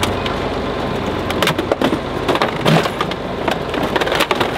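Farm tractor engine running, with irregular sharp cracks and crunches over it.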